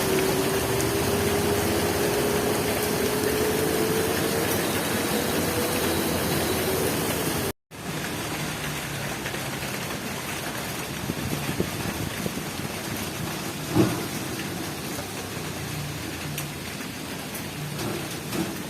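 Heavy rain pouring steadily, with a faint slowly rising hum under it for the first several seconds. About halfway through, the sound cuts out for an instant and comes back a little quieter, and a single sharp knock sounds later on.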